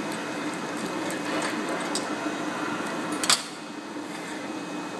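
Butyl rubber sheet extrusion line running: a steady mechanical hum from the belt-driven roller winder and its motor. A single sharp click comes a little over three seconds in, after which the running noise is slightly quieter.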